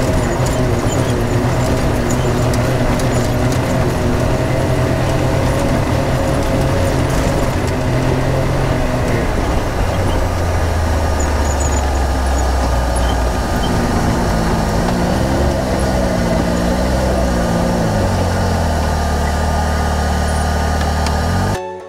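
Side-by-side UTV engine running under way on a dirt track, with tyre and road noise. The engine note drops lower about halfway through, rises and falls a few times later on, and cuts off abruptly just before the end.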